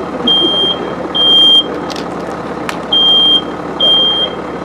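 Smoke alarm sounding its high-pitched beep in the three-beep pattern: three half-second beeps, a pause, then three more. This is the evacuation signal given when it senses smoke.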